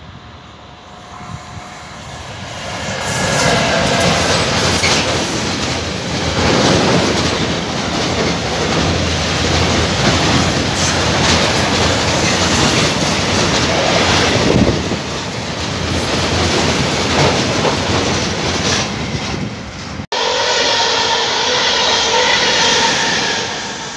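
Long freight train of tank wagons passing close by: wheels rumbling and clattering over the rails, building from about two seconds in. About twenty seconds in it cuts to a train of passenger coaches running past, with a steady whine over the wheel noise.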